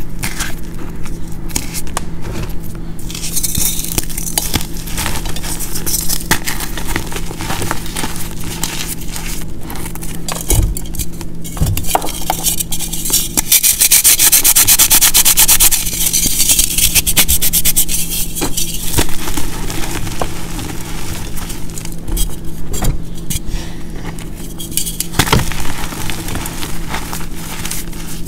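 Hands crushing and crumbling pressed blocks of reformed gym chalk into loose powder, with dry crackling and crumbling throughout. About halfway through, two chalk blocks are rubbed against each other, giving a dense, loud grating scrape for a couple of seconds. A steady low hum runs underneath.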